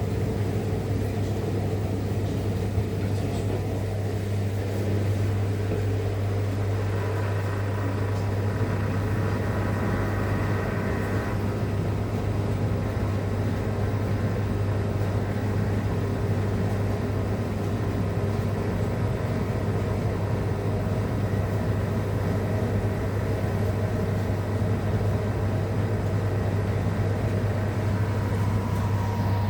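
Rex-Electrolux RJ 7160 TA washing machine running with a steady low hum, with a faint higher whine added between about 7 and 11 seconds in.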